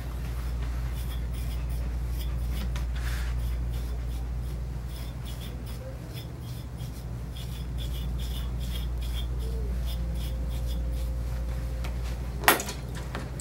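A grooming comb drawn again and again through a dog's long tail fur, a run of quick strokes over a steady low hum. A sharp knock comes near the end.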